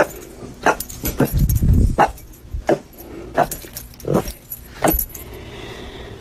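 Boston terrier barking: about eight short barks at uneven gaps of half a second to a second, stopping about five seconds in.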